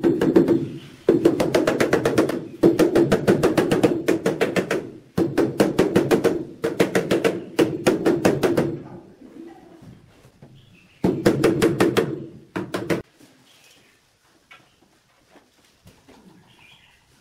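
Rubber mallet tapping a large ceramic wall tile to bed it into its mortar, in quick runs of about five or six taps a second with short pauses between runs. The tapping stops about thirteen seconds in, leaving only faint scattered sounds.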